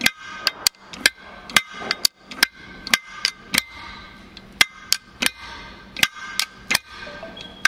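Sharp metallic clicks, about two to three a second and unevenly spaced, from the adjuster mechanism inside a freshly rebuilt air disc brake caliper being worked with a screwdriver in a function check.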